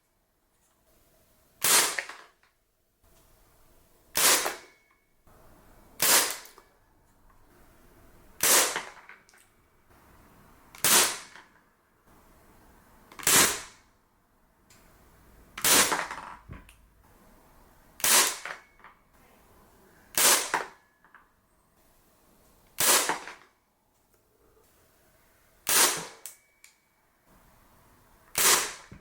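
Carbon8 Steyr L9-A2 CO2 blowback airsoft pistol firing single shots, a sharp crack about every two and a half seconds, a dozen in all, each with a short ring after it.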